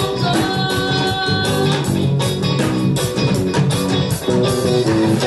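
Live reggae band playing an instrumental passage: electric guitars, bass guitar, drums and keyboard, with a steady, even beat.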